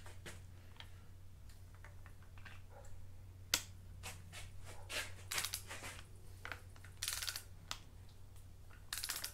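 Ratchet of a click-type torque wrench clicking in short rapid runs as it turns the VR6 cylinder head bolts on the first tightening pass, with a single sharp click about three and a half seconds in. A faint steady low hum runs underneath.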